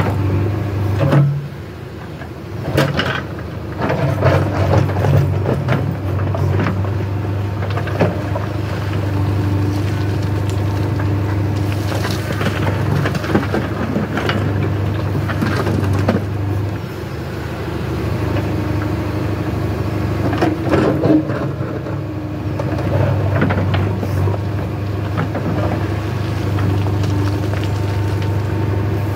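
JCB 3DX backhoe loader's diesel engine running steadily, its level rising and falling as the backhoe digs and swings. Soil and stones clatter and thud into a steel tractor trolley several times.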